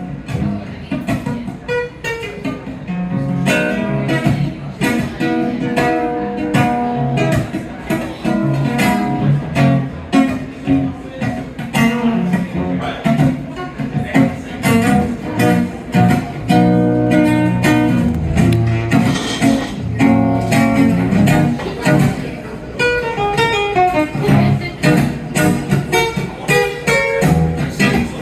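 Live song performance led by guitar, its plucked and strummed chords carrying an instrumental passage.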